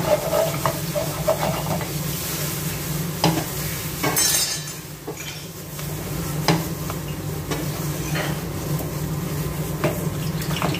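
Shrimp and sauce sizzling in a nonstick frying pan on a gas stove as the pan is tossed and stirred, with scattered clicks and knocks of pan and utensil. A short, louder burst of hiss comes about four seconds in, over a steady low hum.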